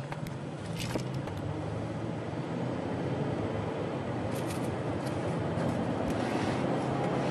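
Shuttle van's engine and road noise heard from inside the cabin, a steady hum that grows slowly louder, with a few light clicks and rattles.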